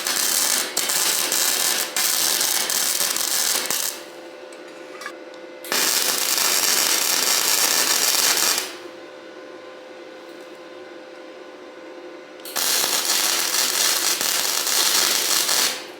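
Arc welding on steel trampoline-frame pipe: three runs of about three to four seconds each, a steady crackling hiss that stops and starts again, with a steady hum underneath throughout.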